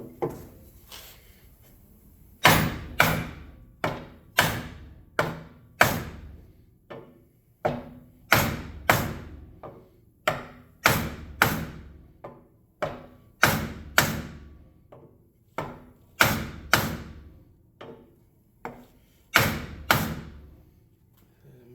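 Hammer blows on a dented motorcycle front wheel rim, about two a second in short runs, knocking the dent out of the cast aluminium rim.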